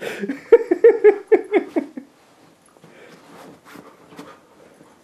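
A person laughing in rapid 'hehehe' pulses, about four a second, stopping about two seconds in. After that come faint rustling and light clicks.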